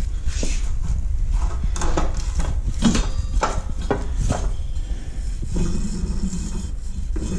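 Belt pulley on a Ferris IS1000 zero-turn mower, spun by hand with the drive belt off, its bearing rumbling steadily with a run of clicks and scrapes. The bearing is noisy.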